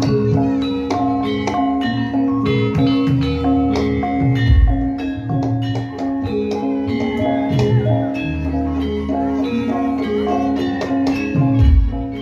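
Javanese gamelan music: struck metallophones play a busy repeating melody over a steady low drone, with deep drum strokes about four and a half seconds in and again near the end.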